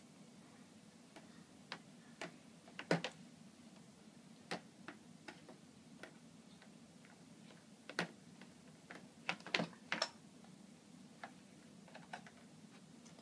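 Plastic sippy cup knocking and tapping on a plastic high-chair tray as a baby tips and rolls it: irregular light taps, with louder knocks about three seconds in and a cluster of them around eight to ten seconds.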